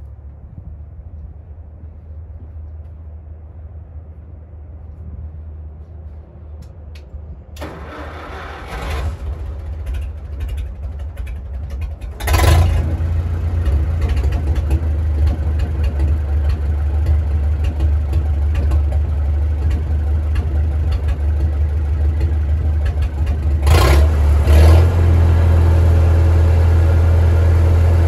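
Straight-piped Farmall Super M tractor's four-cylinder engine running, at first low and quiet. About a third of the way in it rises sharply, climbs again near the end, and settles into a steady, loud fast run.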